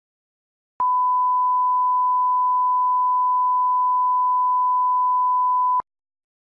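Bars-and-tone test signal: a steady single-pitch reference tone that starts about a second in, holds for about five seconds and cuts off abruptly.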